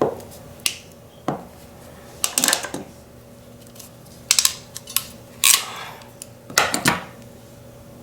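Hand crimping tool being worked to crimp an insulated terminal onto a small wire: a series of irregular sharp clicks and metal clatters from the tool's jaws and handles.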